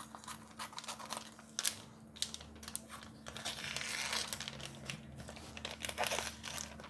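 Kitchen shears snipping through a vacuum-sealed plastic food packet, the thin plastic crinkling and rustling as it is cut and handled, in irregular sharp snips and crackles.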